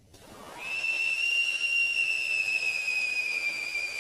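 Ground firework's whistle charge burning: a hiss builds up, then about half a second in a shrill steady whistle comes in and slowly sags in pitch, with the hiss of the burning powder under it.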